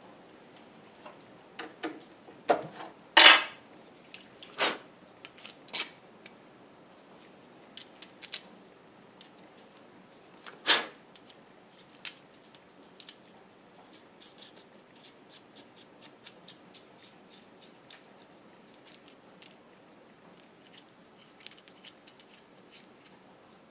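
Small steel parts clinking and clicking against a metal lathe chuck as they are handled and fitted by hand: irregular light metallic clicks, the loudest about three seconds in and another near eleven seconds.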